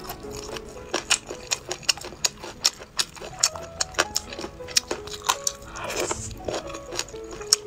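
Close-miked chewing of chicken feet in chili sauce: wet, crunchy mouth clicks coming irregularly, several a second.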